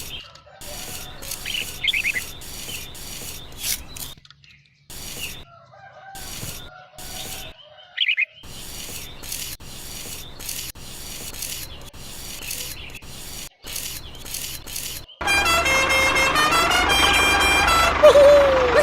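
Birds chirping in short snatches over a low steady hum, broken up by abrupt gaps. About fifteen seconds in, a louder run of steady tones that change pitch in steps takes over, like music.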